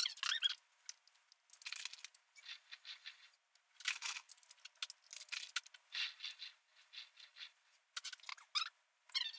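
Faint, scattered metallic clinks and rattles as small metal turbo parts and tools are handled at a lathe's four-jaw chuck while the lathe is stopped.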